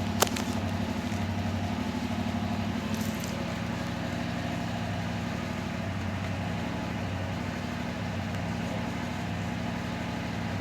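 Yamaha R7's 689 cc parallel-twin engine idling steadily. A single sharp click sounds about a quarter second in.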